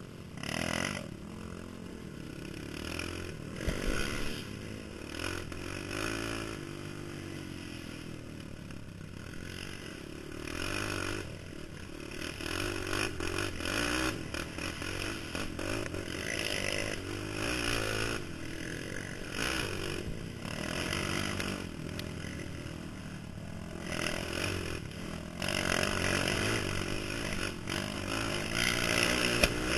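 Honda TRX450R sport quad's single-cylinder four-stroke engine revving up and down as it is ridden along a rough dirt trail, heard through a helmet-mounted microphone, with repeated bursts of rushing noise and rattling.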